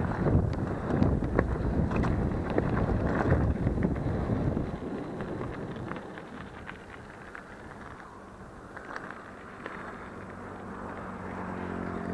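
Mountain bike rattling and knocking over a rough dirt trail at speed, with wind buffeting the microphone. About four to five seconds in it drops to a quieter, steady hiss of the tyres rolling on smooth pavement.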